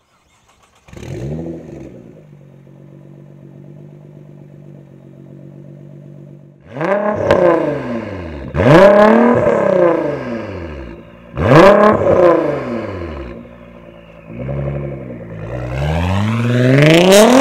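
Nissan GT-R R35's twin-turbo V6 through an aftermarket Bullet Performance exhaust. About a second in it flares up and settles to a steady idle, then takes three sharp free-revving blips of the throttle, and near the end a longer rev climbs.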